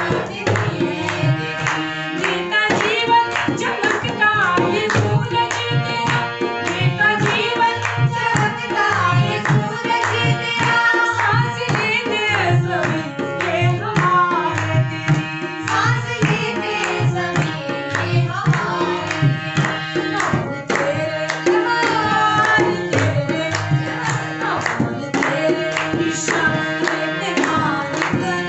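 A devotional bhajan: a woman singing to a harmonium, with a two-headed dholak drum played by hand in a steady rhythm and people clapping along in time.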